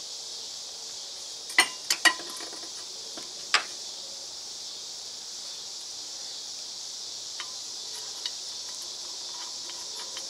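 Steel U-joint bearing caps and parts clinking as they are handled on a steel bench vise and driveshaft yoke: three quick sharp clinks about a second and a half in, another near 3.5 s, then two faint ticks later, over a steady high hiss.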